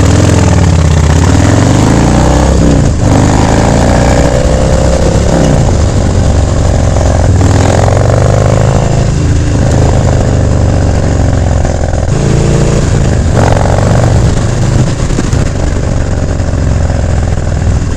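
Harley-Davidson Dyna Street Bob's V-twin running loud through a FAB28 aftermarket exhaust while riding, its pitch climbing and dropping back several times as the bike accelerates and eases off.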